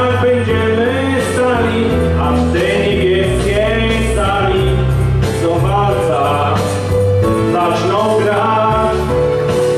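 A man singing a song into a microphone over instrumental accompaniment, with long held notes in the melody.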